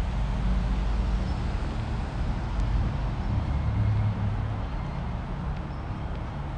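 Steady low rumble of traffic on the elevated highways overhead, with a faint even hiss of road noise above it.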